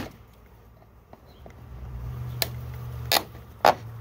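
Sharp knocks and clicks of metal on wood as the metal feeder can is worked loose in the top of a wooden bee package: one at the very start, then three in the second half, the last the loudest. A low steady hum comes in about halfway through.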